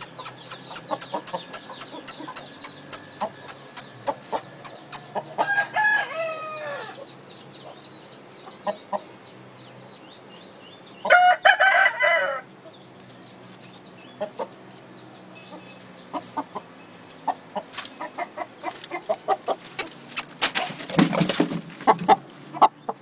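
Rooster crowing twice, about five seconds in and again around eleven seconds, each crow falling in pitch at its end. Between and around the crows come many short sharp clicks, and near the end there is a loud scuffling burst.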